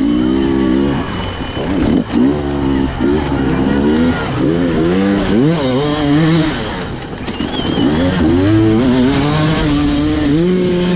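Two-stroke hard enduro motorcycle engine revving up and down in short bursts of throttle, its pitch rising and falling repeatedly, with a brief dip in revs about seven seconds in.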